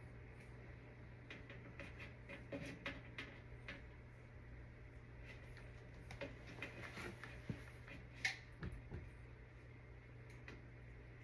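Faint scattered clicks and light taps over a steady low hum, with two sharper clicks about seven and eight seconds in.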